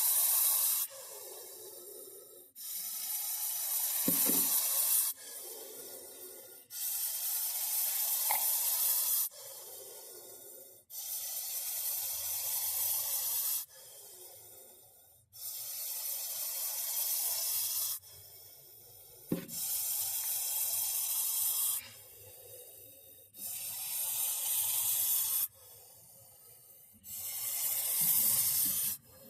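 Russell's viper hissing: a loud hiss lasting about two seconds comes roughly every four seconds, with a softer hiss in each gap as the snake draws breath.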